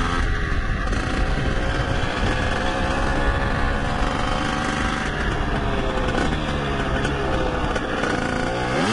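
LEM LX4 mini motocross bike's small two-stroke engine running under load while riding, its pitch rising and falling as the revs change, picked up by a microphone inside the rider's helmet. The repaired clutch is gripping rather than slipping.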